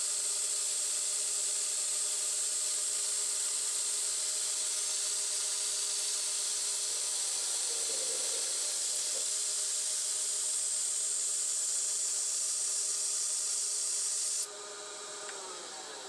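A 9x20 benchtop metal lathe turning steadily while a mini cutoff insert feeds into half-inch stainless steel bar, giving a steady high hiss over the spindle's whine. Near the end the cutting hiss stops abruptly and the whine falls in pitch as the spindle slows.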